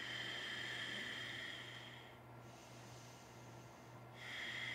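A woman breathing slowly and softly in and out through her nose: one long breath that fades about two seconds in, a pause, then the next breath starting near the end.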